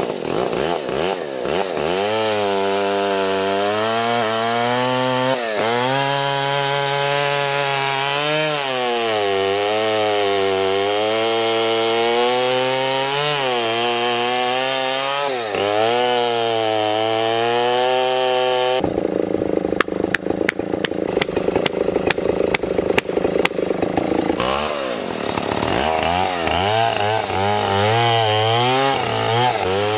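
Large gas chainsaw cross-cutting a thick white oak log, its engine note sagging under load and recovering every few seconds as the bar sinks through the wood. About two-thirds through, the steady engine note gives way to a rougher, rattling stretch for several seconds before the loaded cutting note returns.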